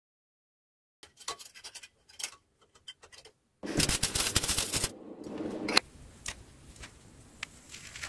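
Welding arc crackling and sputtering for about two seconds while fusing cutlery pieces, after a second or two of scattered clicks and taps. Fainter clicks follow.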